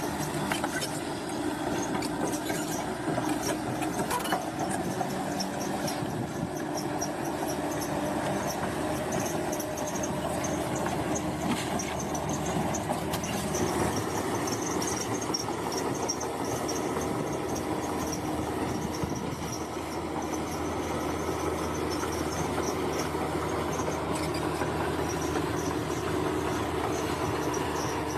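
Crawler bulldozer working: its diesel engine runs steadily under load while the steel tracks clank and squeal.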